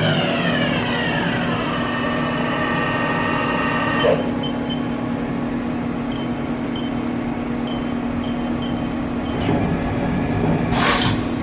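Haas Super Mini Mill 2 CNC machining center's spindle winding down, its whine falling in pitch over about two seconds, then the machine humming steadily. There is a click about four seconds in, and some louder clattering noises near the end.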